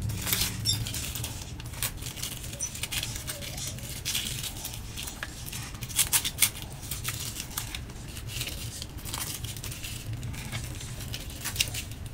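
Clear plastic protective film crinkling as it is peeled off a small plastic desk robot, mixed with clicks and rustles of fingers handling the robot's shell and base. There are a few sharper clicks about six seconds in and again near the end.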